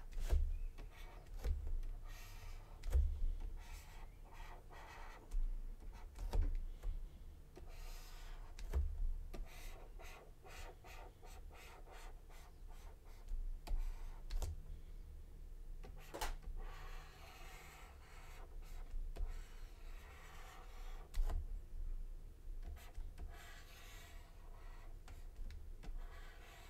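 Stylus of a Huion pen tablet scratching and tapping on the tablet surface while letters are drawn by hand. It comes as short strokes with scattered sharp clicks and some low thumps.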